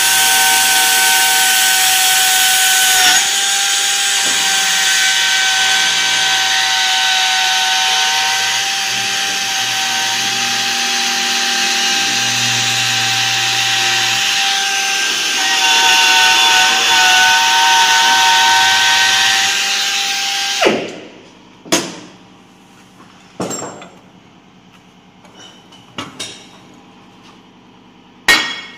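Handheld edge chamfering tool (MAN R 70) running with a steady high whine and hiss as it cuts a chamfer along the edge of a steel plate. It cuts off suddenly about 21 seconds in, followed by a few sharp knocks as the tool and plate are set down and moved on the bench.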